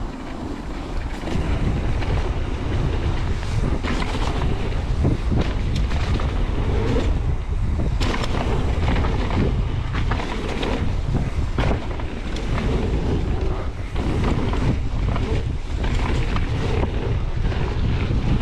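Wind buffeting the microphone as a mountain bike is ridden fast along a dirt trail, with tyre noise and frequent clatters and knocks from the bike going over bumps.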